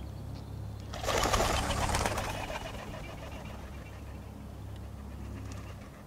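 A bird's wings flapping in a sudden fluttering burst about a second in, fading out over the next couple of seconds, over a steady low hum.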